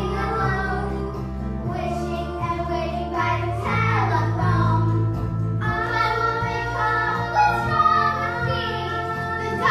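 Music: a song with instrumental backing and a child's singing voice over held bass notes.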